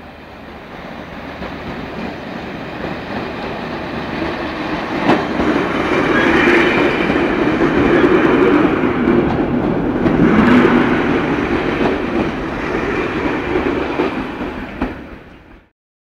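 British Rail Class 421 (4-CIG) slam-door electric multiple unit approaching along the platform and passing close by, its running noise growing steadily louder and peaking as the coaches go past, with a few sharp clicks from the wheels on the track. The sound cuts off suddenly near the end.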